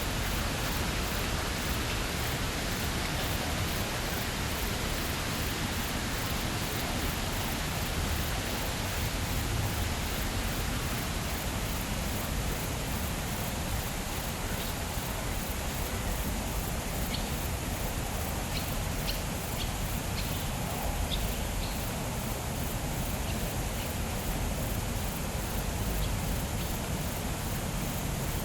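Steady outdoor noise, an even hiss like wind or rustling foliage. Faint, brief high chirps of swallows are scattered through the second half.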